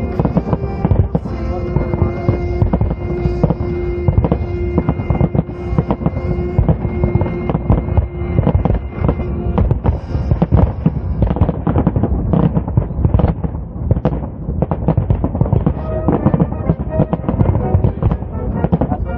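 Fireworks display going off in a dense, rapid run of bursts and crackles, with music playing underneath; a long held note in the music stops about halfway through.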